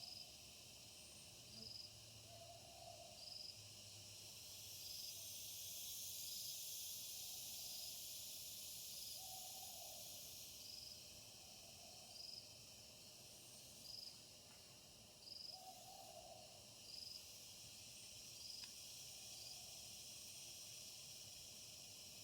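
Faint night chorus of insects, with a short high note repeating about every one and a half seconds until near the end, and soft low hooting calls every few seconds.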